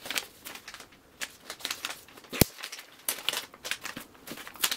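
Kraft paper wrapping rustling and crinkling in short irregular bursts as a twine-tied parcel is unwrapped by hand, with one sharp click about halfway through.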